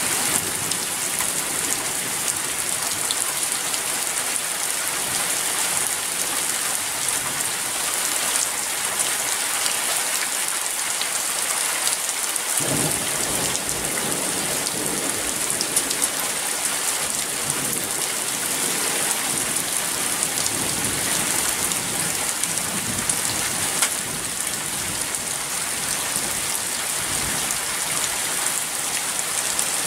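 Heavy thunderstorm rain falling steadily as a dense hiss; about halfway in, a low rumble of thunder joins and carries on.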